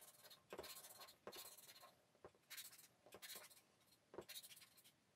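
Marker drawing on a paper easel pad, several short faint strokes as small hearts are drawn one after another.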